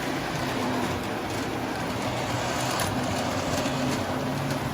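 Model trains running on the layout's track: a steady rumble of motors and wheels with a low hum.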